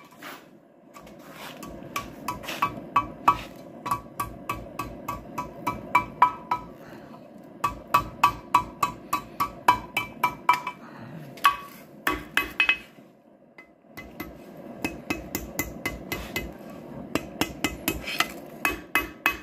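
Hand hammer striking steel on an anvil in runs of ringing blows, about two to three a second, with short pauses between runs, while a coal rake is forged. A steady low rushing noise runs underneath.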